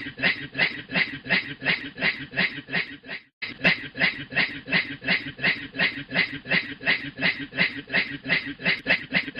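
A man's rhythmic, breathy 'hue hue hue' laughter, about five pulses a second like a chugging steam train. It breaks off once a little past three seconds and picks up again.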